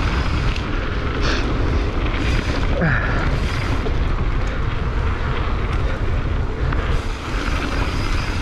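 Wind rushing over an action camera's microphone as a mountain bike rolls fast down a dirt singletrack, with the tyres running on packed dirt and small stones.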